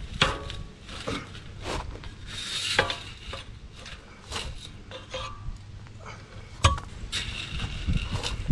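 Irregular metal clinks and clicks of an adjustable spanner and spline tool working on an old 7-speed bicycle freewheel, with a sharp knock about two-thirds of the way through. Wind rumbles on the microphone throughout.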